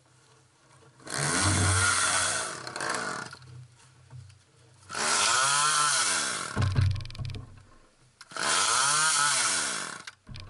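Two-stroke gas chainsaw running in sub-zero cold, idling and revved three times while held up in the air. Each rev rises in pitch and falls back over about two seconds.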